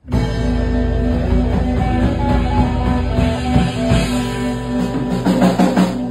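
Live rock band playing an instrumental passage on electric guitar, bass guitar, keyboard and drum kit, with no singing. The drums grow busier near the end in a fill.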